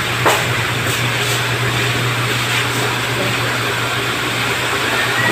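Steady low hum under an even hiss: constant background room noise, with a faint click or two near the start.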